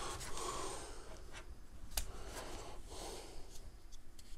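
Soft handling noise of a handheld plastic gimbal being picked up and moved, with one sharp click about two seconds in and a few fainter ticks.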